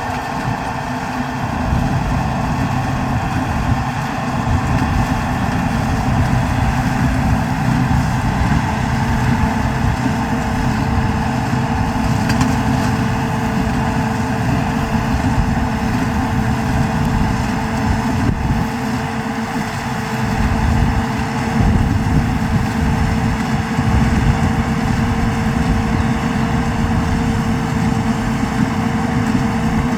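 New Holland TD110D tractor's diesel engine running steadily at an even speed, with a constant hum held throughout.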